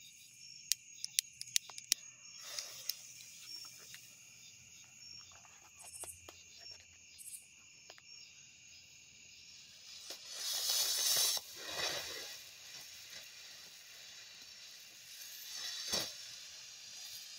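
World Class Frisky Starburst firework fountain hissing as it sprays sparks, loudest from about ten seconds in and building again near the end with a sharp pop. A few lighter clicks come near the start. Crickets chirr steadily throughout.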